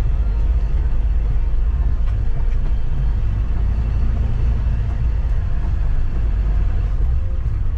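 Troller 4x4 driving uphill on a mountain road, heard inside the cabin: a steady, loud low rumble of engine and tyres.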